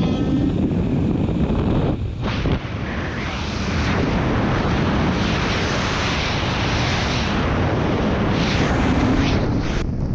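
Loud, steady wind rushing over a helmet-mounted camera's microphone through a skydive exit and freefall. It dips briefly about two seconds in and breaks off sharply near the end.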